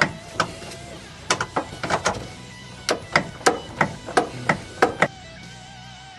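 A run of about fifteen sharp hammer blows at irregular intervals, two to three a second, stopping about five seconds in, while working loose rusted bolts. Faint background music runs underneath.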